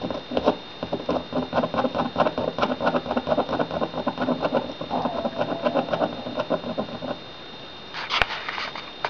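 Maltese puppies play-fighting, making rapid little growls and yips, about five a second, with a drawn-out falling whine about five seconds in. The noise stops about seven seconds in, and a short sharp sound follows near the end.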